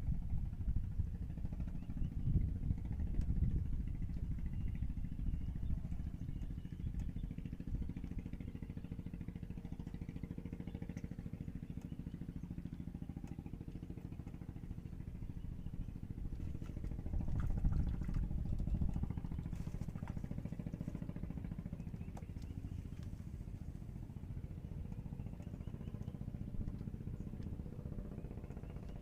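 A small motor running steadily with a low rumble, swelling louder briefly a couple of seconds in and again a little past the middle.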